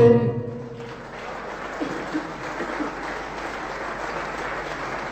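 A sung note and the accompanying instruments stop within the first second, then a concert audience applauds steadily.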